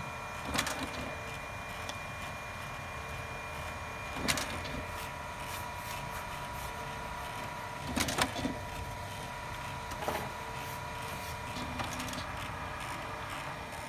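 HP Color LaserJet Pro MFP M177fw colour laser printer running its calibration cycle: a steady mechanical whir with a faint high tone, broken by sharp clacks about half a second in, near four seconds, twice near eight seconds and once near ten seconds.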